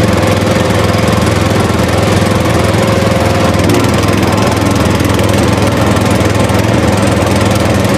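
Small engine running steadily at one even speed with a fast putter, a tractor engine sound.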